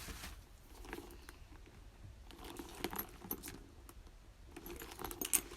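Faint metallic jingling and light clicks from a leather handbag's metal hardware as the bag is turned over and handled.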